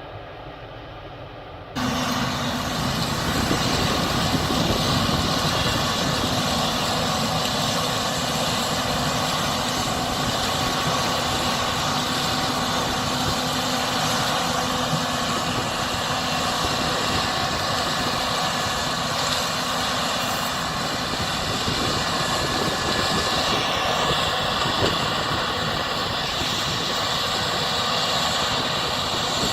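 Case IH 6140 combine with an 8-row corn head running steadily while harvesting corn: a loud, even machinery drone with steady whining tones. It starts suddenly about two seconds in, after a short quieter stretch.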